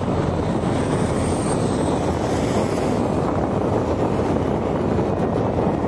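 Heavy construction machinery running: a steady, even roar with no distinct rhythm or pitch.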